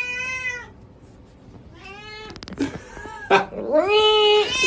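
Domestic cat meowing loudly in long, drawn-out calls: one at the start, a shorter rising one about two seconds in, and a louder, held one near the end.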